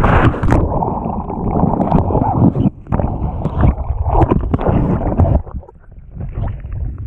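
A windsurfer crashing into the sea: wind buffeting the microphone and water spray, then splashing and gurgling as the camera goes under and comes back up beside the board. The sound turns duller and quieter for about a second a little after the middle.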